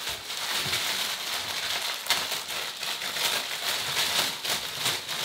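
Plastic garment packaging crinkling and crackling continuously as a new t-shirt is pulled out of its bag by hand.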